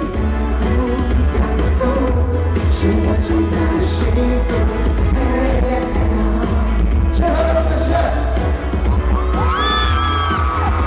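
Live pop music with singing over a heavy, steady bass and drum beat. Near the end, voices slide up and down in pitch.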